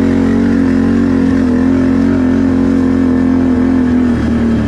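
Can-Am 1000 ATV's V-twin engine running at steady revs under load, with a brief dip about four seconds in.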